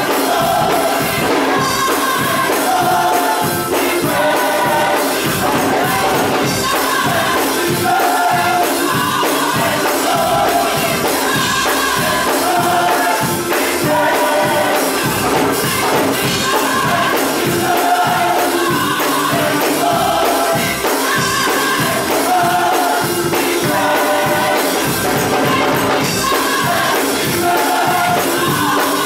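Gospel choir singing with band accompaniment and a steady beat, a tambourine shaking along.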